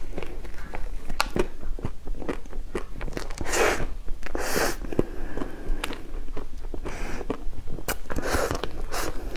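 A person biting and chewing food close to the microphone, with many small wet mouth clicks and a few short louder bursts.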